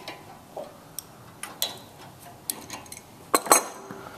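Short metallic clicks and clinks of a steel open-end wrench against the brass fittings of an espresso machine's steam valve as the tube nut is loosened, with a louder clatter of metal about three and a half seconds in.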